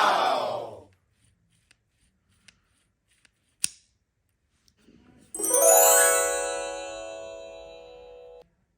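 A bright, bell-like chime sound effect rings out about five seconds in, fading over about three seconds before cutting off suddenly. Before it, a crowd-like cheer effect ends about a second in, followed by a few faint clicks and one sharp click.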